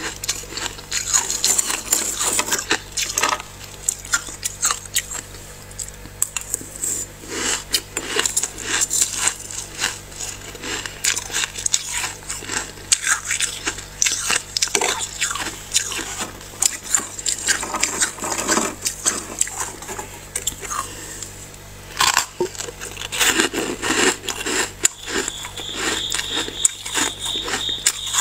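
Thick, snow-like freezer frost being scraped and dug loose from the freezer, a dense run of crunching and scratching, with short pauses between bursts.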